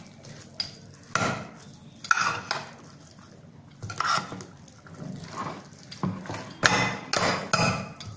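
A spoon stirring and tossing a moist sprout salad in a glass dish, with irregular scrapes and clinks against the glass about once a second.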